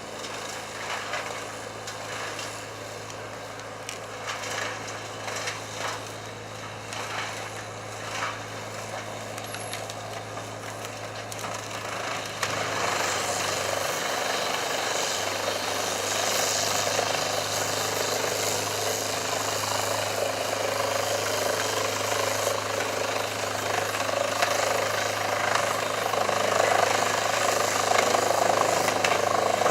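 Heavy machinery engine running steadily, with scattered knocks and cracks. About twelve seconds in it becomes louder and noisier, as if working under load.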